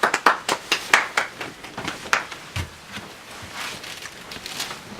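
Hand clapping after a guest's introduction: a quick run of claps that thins out and stops about halfway through.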